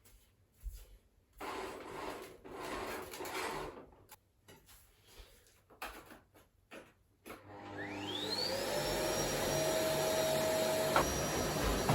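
Scattered short rustles and knocks, then about eight seconds in a vacuum cleaner switches on: its motor whine climbs quickly in pitch and settles into a steady run.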